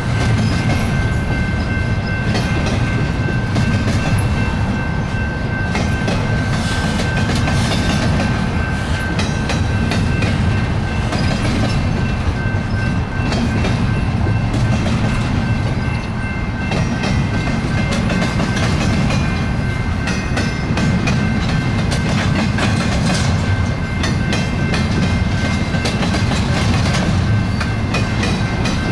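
Double-stack intermodal train of loaded well cars rolling past: a steady rumble of steel wheels on rail, with clicks as the wheels cross rail joints and a thin, steady high whine.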